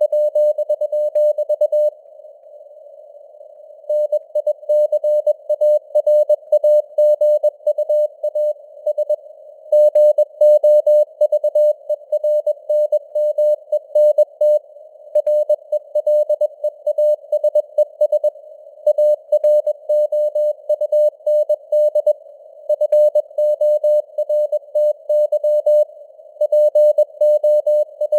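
Morse code (CW) sent at 21 words per minute: a single mid-pitched tone keyed on and off in dots and dashes, inside a narrow band of simulated radio hiss, the signal strength fading up and down (QSB). About two seconds in there is a short pause between words.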